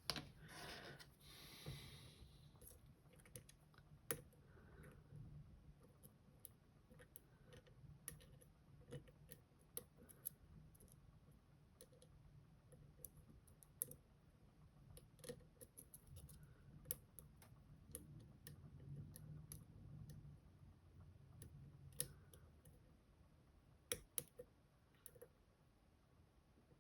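Faint, irregular clicks and light scraping of metal lock picks working inside an M&C Color+ dimple lock cylinder, as a fork pick pushes the sidebar's spring sliders.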